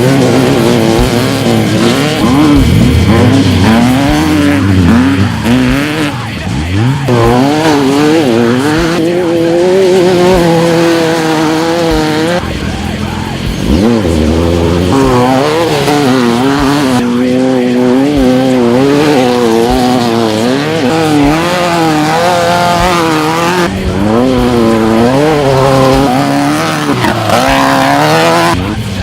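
Off-road race truck's engine revving hard, its pitch rising and falling quickly as the throttle is worked, with short low thumps underneath. It eases off briefly a couple of times.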